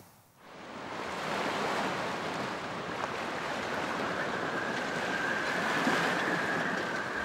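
Steady rush of sea and wind around a ship at sea, fading in over the first second. A faint steady high tone joins about two seconds in.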